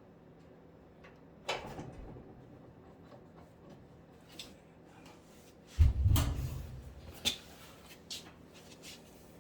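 Scattered clicks and knocks of parts being handled, with one heavy thump about six seconds in that dies away over about a second, like a cabinet panel or door being set in place.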